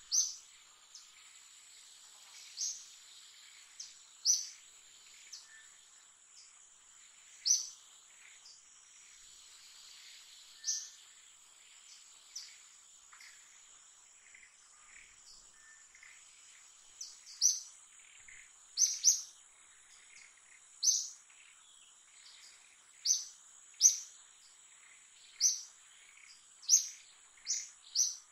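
Short, high bird chirps repeated at irregular intervals, more often in the second half, over a steady high insect drone.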